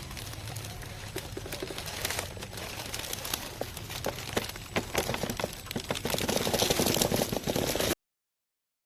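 RGT EX86120 RC crawler driving over rough ground, its tyres crunching and crackling over loose surface with a steady low hum beneath. The crunching gets denser and louder about halfway through, then the sound cuts off abruptly near the end.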